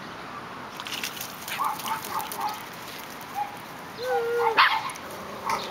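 Pit bull vocalizing in play: a few short barks, then a held whining note and a louder bark about four seconds in, over a patter of splashing and footfalls.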